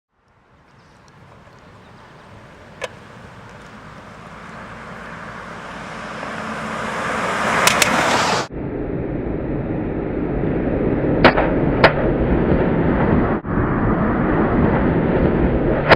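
Dodge Durango approaching at about 40 mph, its tyre and road noise rising steadily, then two sharp cracks a fraction of a second apart as its front and rear tyres run over a hummingbird feeder. After a cut, loud steady road noise with two more sharp cracks from tyres striking the feeder, and another near the end.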